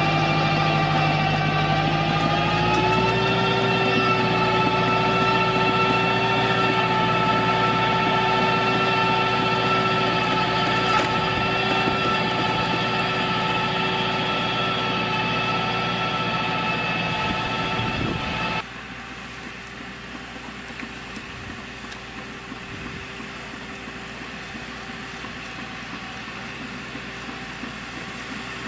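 Tractor with a mounted hydraulic pruning machine running steadily, a machine hum with a steady whine. The pitch lifts slightly about three seconds in, and the sound drops suddenly to a quieter level about two-thirds of the way through.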